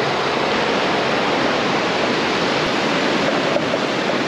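Steady rushing of river water pouring over a weir.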